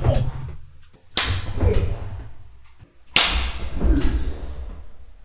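A hard open-hand slap heard three times. Each is a sharp crack followed by a deep boom that fades over a second or two.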